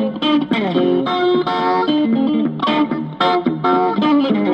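Background music: a guitar playing a quick run of plucked notes.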